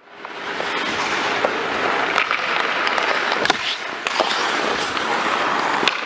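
Ice hockey on an indoor rink heard close up from the goalie: a steady scraping of skate blades on ice with sharp clacks of sticks and puck scattered through, about six of them. It fades in at the start.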